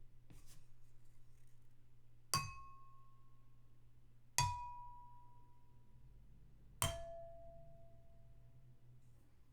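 Three single taps of a spoon on drinking glasses, each ringing with one clear tone that fades over a second or two. Each ring is a little lower in pitch than the one before, the third clearly lower. A faint light tap comes just before them.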